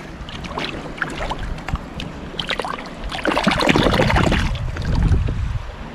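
Shallow river water sloshing and splashing as a hand reaches in and lifts a small pot off the riverbed, louder for about two seconds from three seconds in, with a few light clicks before it.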